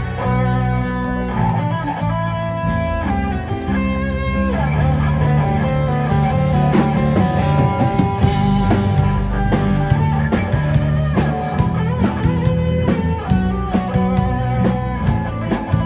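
Live rock band playing: electric and acoustic guitars over bass guitar and a drum kit, with steady, even cymbal ticks keeping time.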